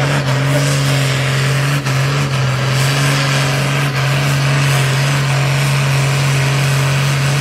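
Vintage Fordson diesel tractor engine held at full throttle under heavy load while dragging a weight-transfer pulling sled, a loud, steady drone.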